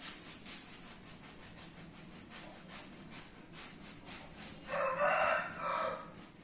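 Paintbrush scrubbing across canvas in soft, rhythmic strokes, a few a second. About five seconds in, a rooster crows once in the background, the loudest sound.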